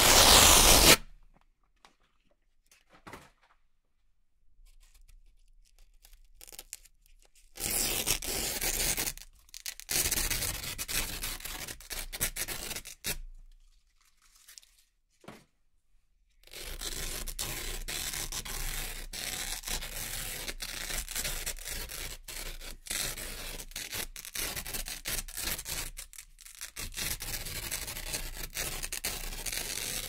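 Velcro hook-and-loop strips being peeled apart. A rip ends about a second in, a few shorter pulls follow after a pause, and one long, unbroken peel fills the second half.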